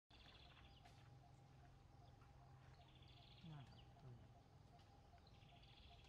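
Faint forest ambience with birds calling: a high trilling call repeats three times, a faint regular ticking call runs underneath, and two short falling notes come a little after the middle. A low hum fades out about four seconds in.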